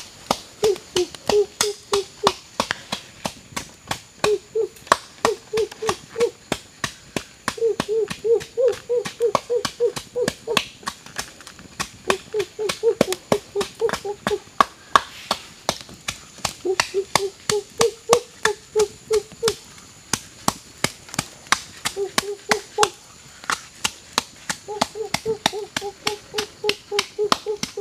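Bamboo pestle pounding in a small bowl, steady rhythmic knocks at roughly three to four a second, as chili or sauce ingredients are crushed. In several stretches the knocks carry a short low-pitched ring.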